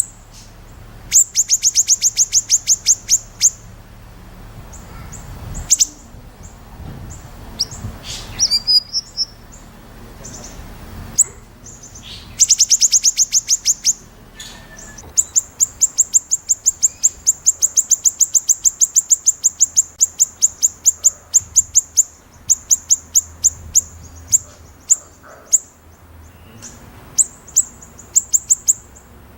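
White-rumped shama (murai batu) singing its sharp, rapid repeated-note phrase that bird fanciers call 'besetan': loud runs of high notes several a second, in a handful of bursts, the longest lasting about six seconds.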